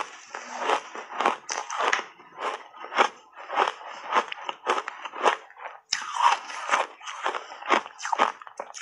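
Refrozen block ice coated in matcha powder being chewed, crunching sharply about twice a second.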